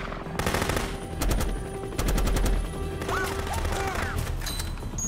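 Film firefight sound: rapid bursts of automatic gunfire and bullet strikes over a steady low rumble.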